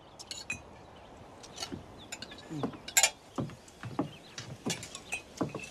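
Scattered short clinks and knocks of goblets and tableware at a banquet table, coming irregularly with a few louder ones near the middle.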